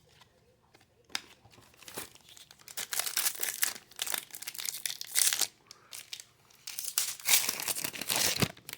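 Foil wrapper of a trading-card pack torn open by hand and crinkled, in two spells of crackling with a short pause between.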